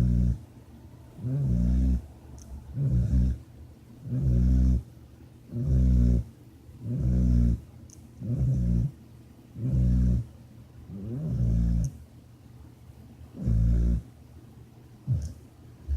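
Snoring: about ten low-pitched snores in a steady rhythm, one every second and a half or so, each lasting about half a second, the last one near the end shorter.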